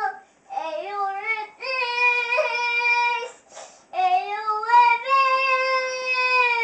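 Young boy singing in a mock-opera style, holding long high notes in three phrases with short breaks between them.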